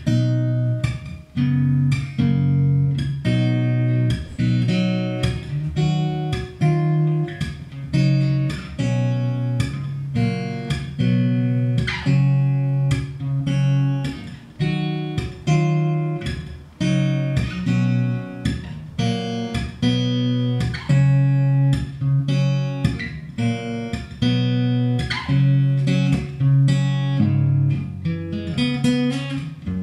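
Solo cutaway acoustic guitar played fingerstyle: a continuous instrumental passage of plucked notes, low bass notes sounding under a higher melody.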